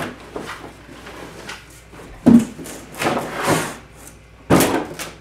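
Cardboard box being handled and unpacked: a loud thump a little over two seconds in, plastic packaging rustling, then another sharp knock near the end.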